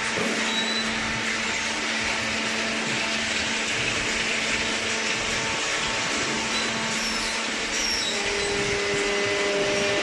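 Cardboard baling-line machinery running with a steady, even whirring noise and a faint hum underneath.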